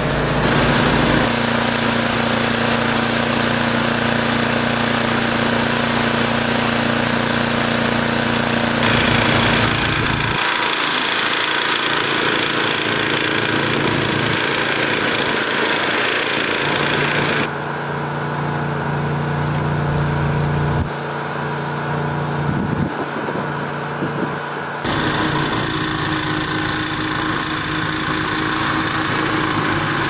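Gas engine of a two-stage snowblower running steadily under load as it clears and throws snow. Its tone and loudness jump abruptly every few seconds.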